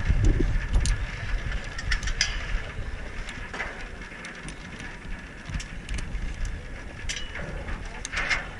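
Scattered sharp metallic clicks and rattles of zipline harness hardware being handled, over low wind rumble on the microphone that is strongest in the first second.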